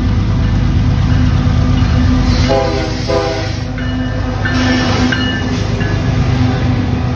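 BNSF freight train's diesel locomotives passing close, engines running with a heavy steady drone, and the horn sounding a chord in two short blasts about two and a half seconds in. Scattered high squeals follow as the cars roll by.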